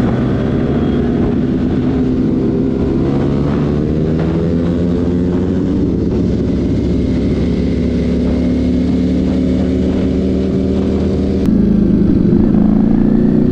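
Kawasaki ZX-10R inline-four engine running on the move at cruising speed, its pitch rising and falling gently with the throttle, over wind rush. About eleven and a half seconds in it cuts to a Ducati Panigale V4S V4 engine running, a little louder.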